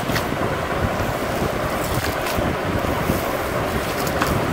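A hand kneading and squelching raw minced beef mixed with eggs and chopped herbs in a bowl, under a steady rushing, wind-like noise.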